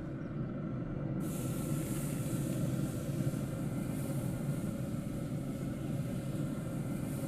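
Barbecue-marinated chicken fillet sizzling on a hot pellet-grill grate, a steady hiss that starts suddenly about a second in, over a steady low hum.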